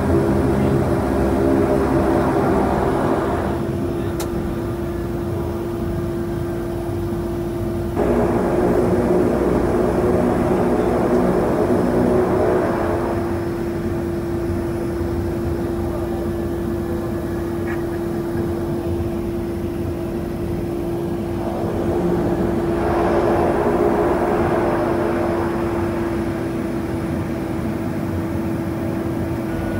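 DHC-6-400 Twin Otter's Pratt & Whitney PT6A turboprop engines and propellers heard from inside the cabin while taxiing: a steady drone with one strong note, swelling louder and easing off several times as power changes.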